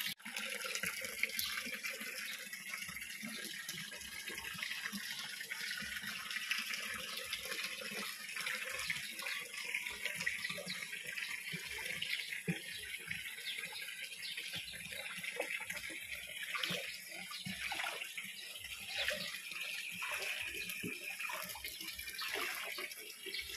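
Running water trickling and splashing steadily in a concrete fish pond as it is being drained.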